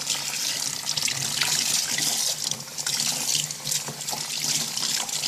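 Tap water running steadily into a sink while a Roomba's dust filter is rinsed clean under it.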